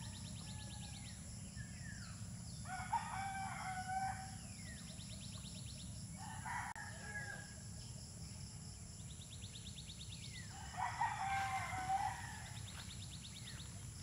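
A rooster crowing twice, about three seconds in and again near eleven seconds. Between the crows, smaller birds call with short rapid trills and falling chirps.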